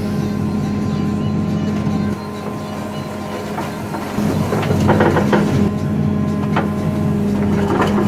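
Caterpillar 432F2 backhoe loader's four-cylinder diesel engine running steadily as the backhoe arm works, its note dropping a little about two seconds in and coming back up past four seconds. A few sharp knocks are heard in the second half.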